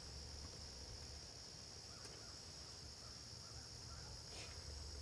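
Faint, steady high-pitched chorus of crickets, with a low rumble underneath.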